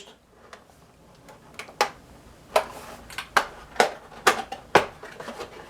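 Handling of a boxed model train car: about half a dozen sharp light clicks and knocks at irregular intervals, starting about a second and a half in, with a brief rustle among them.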